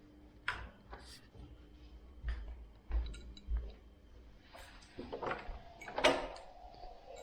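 A bottle being tapped and handled to make sounds: a string of irregular light knocks and clicks, a second or so apart, coming more often near the end.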